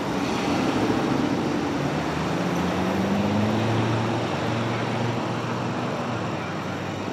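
Road traffic with car engines running. One engine note rises in pitch about two seconds in, then holds steady.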